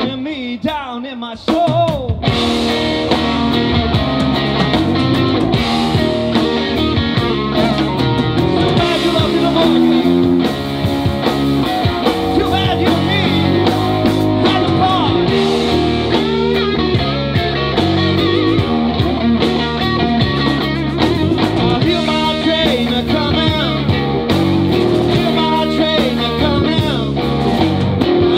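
Live blues-rock band playing: an electric guitar plays bending lead lines over bass guitar and a drum kit. After a quieter guitar phrase, the full band comes in about two seconds in.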